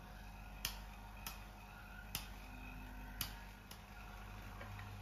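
Small electric vacuum pump running with a steady low hum, under five short, sharp clicks spread over about three seconds.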